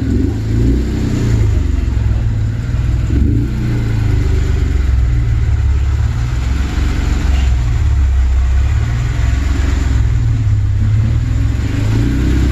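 Car engine running with a deep exhaust rumble that swells and eases every second or so.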